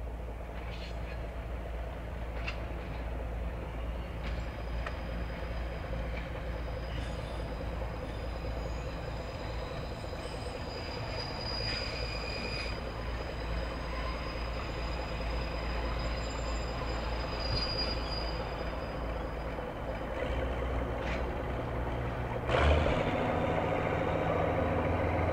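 Train running along the track: a steady low rumble with a thin high wheel squeal, growing louder near the end.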